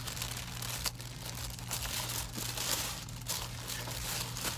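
White tissue-paper wrapping crinkling and rustling as it is unfolded and pulled out of a shoe box, in uneven swells.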